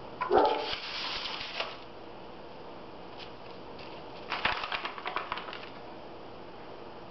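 Rustling and scraping as a gloved hand slides a paper sheet and lifts a plastic mixing cup of epoxy with its stirring stick. It comes in two short spells: the louder one starts about a quarter second in with a brief squeak, and the second, about four seconds in, is a quick run of small clicks.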